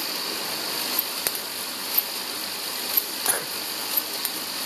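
Automatic rotary bottle-capping machine running: a steady mechanical hiss with sharp clicks about once a second and a few smaller clicks in between.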